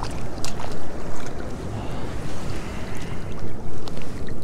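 Water splashing and sloshing as hands lower a caught young ide into the water to release it, over a steady rush of water with wind rumbling on the microphone.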